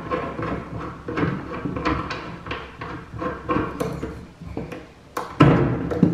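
Handling clicks and small knocks from a radiator valve being worked by hand: the union nut below it, then the plastic thermostatic head being gripped and turned. A louder knock about five seconds in.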